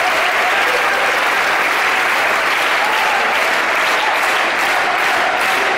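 Concert audience applauding steadily. In the second half the clapping falls into a regular beat of about three claps a second.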